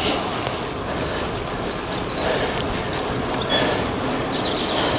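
Steady wind and rolling noise from a moving bicycle, picked up by the rider's camera microphone, with a few faint high chirps in the middle.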